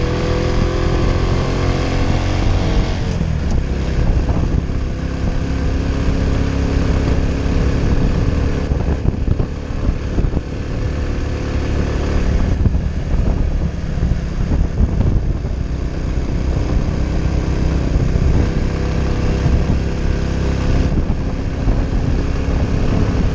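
Honda Innova's single-cylinder 125 cc four-stroke engine pulling under load on a steep uphill climb, its pitch rising over the first three seconds and then holding steady. A steady rushing noise runs over it.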